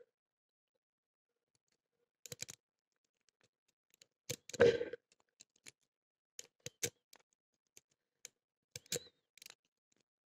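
Scattered metallic clicks and short rattles of lock-picking tools working in a brass-cored padlock, with a louder rattling cluster about halfway through.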